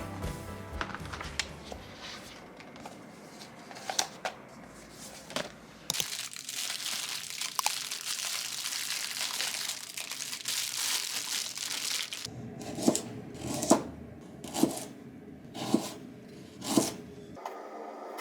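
Close handling sounds: crinkling and scattered clicks, then a steady hiss for several seconds, then a run of sharp taps about once a second.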